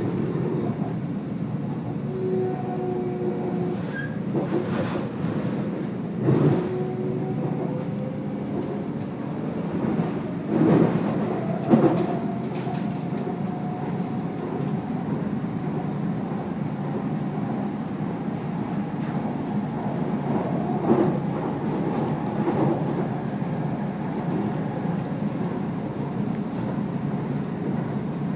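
Vancouver SkyTrain (Canada Line) car running along an elevated guideway, heard from inside the car: a steady rumble of wheels and running gear, with a few sharp knocks over the track and brief faint whining tones.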